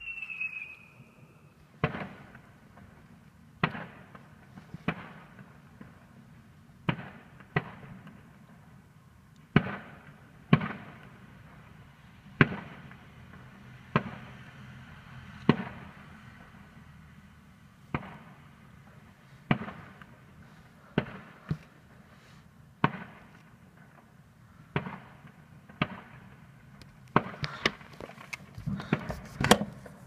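Fireworks exploding in the sky, heard from indoors: single sharp bangs every second or two, with a short falling whistle at the start and a quicker run of bangs near the end.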